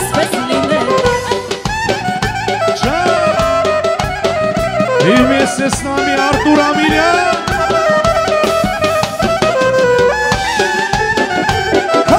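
Instrumental break of live Armenian folk-pop music: an ornamented, bending lead melody over a steady drum beat.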